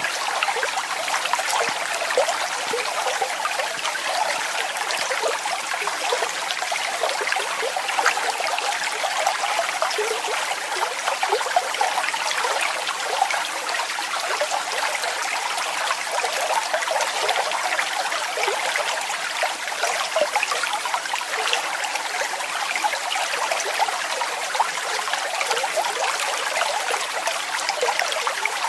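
Falling water splashing steadily: a continuous light rush made of many small splashes, with little deep rumble.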